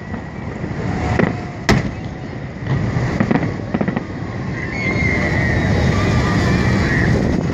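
Festive fireworks salute: scattered bangs and crackles over a continuous low rumble, with one sharp bang about a second and a half in. A wavering high whistle sounds through the second half.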